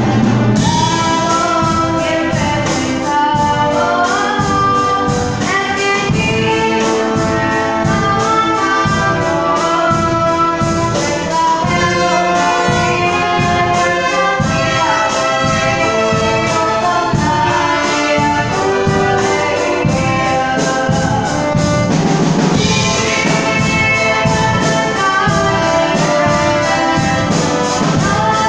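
Youth symphony orchestra playing an arrangement of a song, with many pitched parts moving together without a break.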